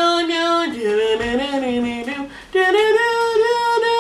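A woman singing a few long, drawn-out notes with no accompaniment. There is a brief break about two and a half seconds in, and she ends on a long held higher note.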